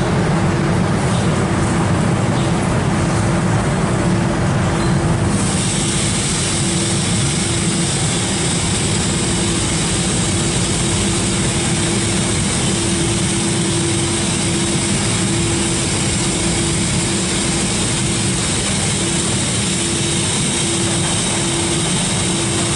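Tammermatic UltraLux rollover car wash gantry running with a steady motor hum and rumble. About five seconds in, a steady hiss of spraying starts and carries on while the brushes work over the car.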